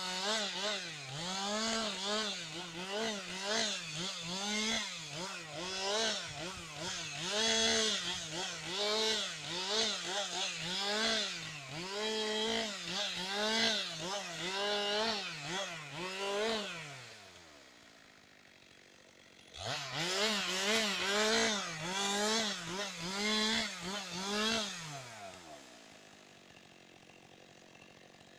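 Two-stroke chainsaw running at full revs, its pitch dipping and rising about once a second as it works through wood. It drops back about 17 seconds in, revs up again near 20 seconds for another five seconds, then drops back again.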